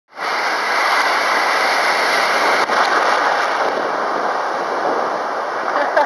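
Breaking surf and churning whitewater heard close up at water level: a loud, steady rushing noise.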